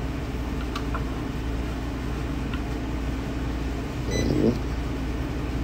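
Steady low electrical hum, with a single short electronic beep about four seconds in as a button is pressed on the progesterone analyzer's keypad.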